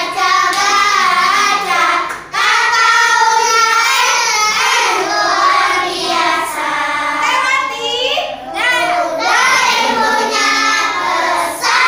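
Young schoolchildren singing a class pep cheer (yel-yel) together.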